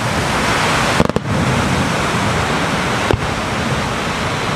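Fireworks display: sharp bangs of shells bursting, a quick cluster about a second in and another single bang about three seconds in, over a loud steady rushing hiss.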